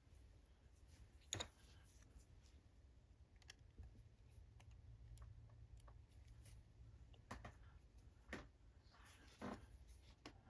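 Faint, scattered metallic clicks and light scrapes of a tension tool and lock pick being worked into a padlock's keyway, over a low steady hum.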